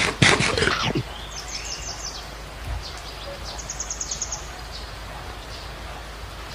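A lion chewing and tearing at raw meat: a quick run of loud, wet crunching chews in the first second. Small birds chirp in two short bursts afterwards over a steady background hiss.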